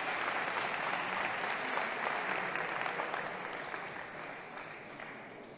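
Crowd applauding, the clapping dying away over the last two seconds.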